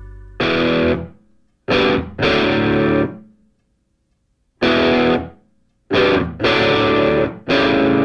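Background music: full chords played in short, chopped phrases that cut off sharply, with silent gaps between them, the longest about a second midway.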